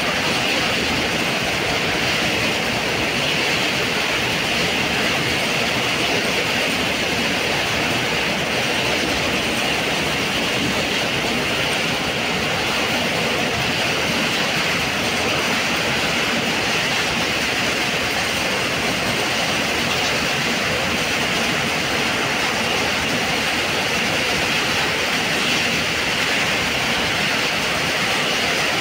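Steady running noise of a passenger train, heard from inside the carriage as it crosses a river bridge. It is an even, unbroken rush that holds at one level throughout.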